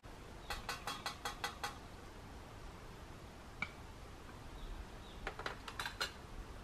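Light clinks of a utensil against metal camp cookware: a quick run of about seven, one on its own around the middle, then a few more near the end.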